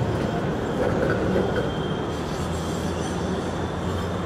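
Electric low-floor tram running past on curved track: a steady rumble of wheels on rail, with a faint high wheel squeal now and then.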